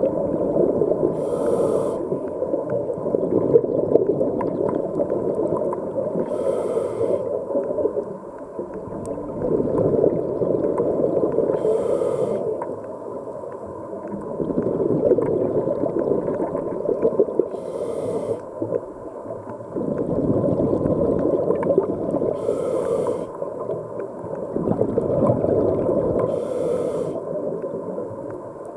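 Scuba diver breathing through a regulator underwater: a short hiss of inhaled air about every five seconds, six times, each followed by a long bubbling rumble of exhaled air.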